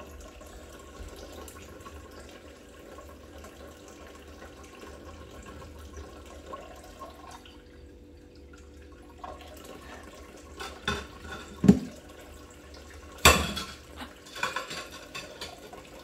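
Dishwashing at a stainless steel kitchen sink: quiet running tap water, then a few sharp clinks and clatters of dishes against the sink in the second half, one especially loud.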